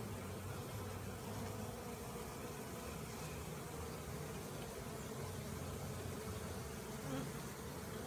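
A swarm of honeybees buzzing with a steady low hum as the swarm crowds into a hive entrance.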